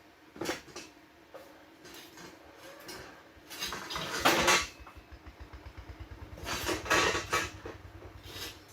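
Metal parts clanking and rattling as they are handled, in three bursts, the middle one the loudest. A low, fast, even throb runs under the second half.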